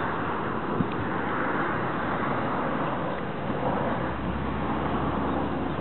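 Steady outdoor background noise like distant traffic, with a single sharp click about a second in and a low rumble joining from about four seconds in.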